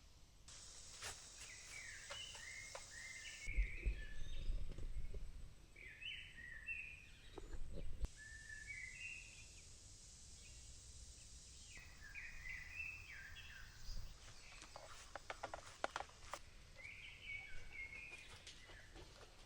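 Birds chirping in short repeated phrases over faint rural background noise, with a low rumble for a few seconds early on and scattered clicks near the end.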